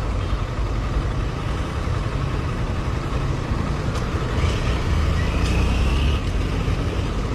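Motorcycle engine idling with a steady low rumble, with another motorcycle passing close by between about four and six seconds in.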